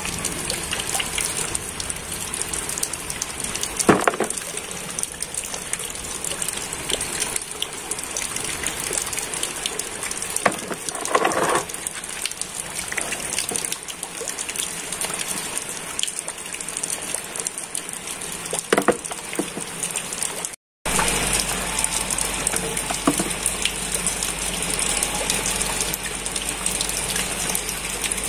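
Steady rush of running water and rain over wet concrete, with a few light knocks as rubber toy animals are picked up and set down.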